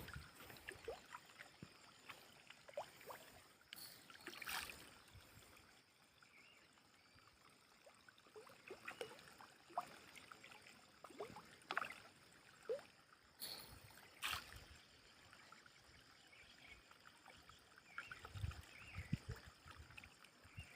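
Faint water sounds: scattered small splashes and trickling, irregular and widely spaced.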